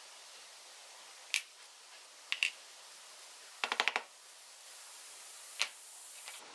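Small metal clicks and clinks as a hole saw and its arbor are handled, pulled apart and set down on a tabletop: a single click about a second in, two close together a little later, a quick rattle of about five clicks just before the four-second mark, and one more near the end, over a low steady hiss.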